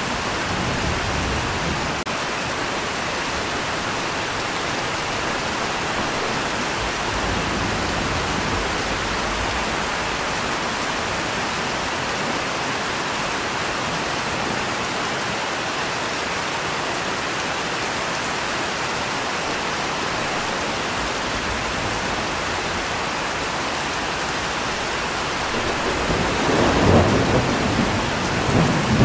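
Steady rain falling, with a louder rumble of thunder swelling near the end.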